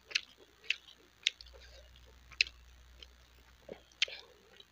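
Wet mouth clicks and lip smacks close to the microphone, about six short sharp ones at uneven spacing, as rice is eaten and licked off the fingers.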